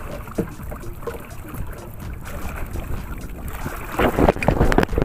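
Wind buffeting the microphone over water lapping at a small outrigger canoe. About four seconds in comes a louder burst of water splashing against the side of the boat, lasting about a second.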